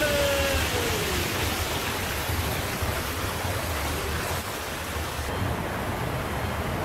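Water pouring over a low concrete river weir and splashing into the pool below, a steady rushing noise. In the first second a man's voice trails off in a falling call.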